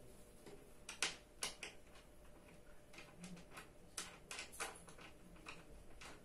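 Faint, irregular clicks and light knocks, about a dozen in a few seconds, from office chair parts and a hex key being handled during assembly.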